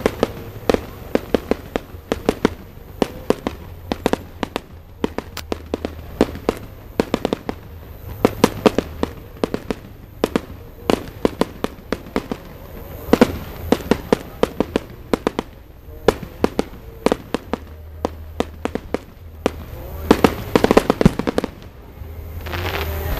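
Aerial fireworks going off in a rapid, uneven string of sharp bangs and crackles, several a second.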